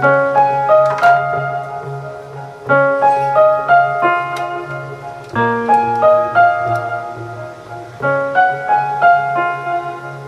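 Background music: a calm piano melody with sustained low notes.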